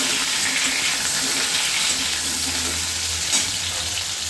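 Cubed potatoes, pumpkin and brinjal frying in oil in a kadai, a steady sizzle, with a metal spatula stirring through them at first.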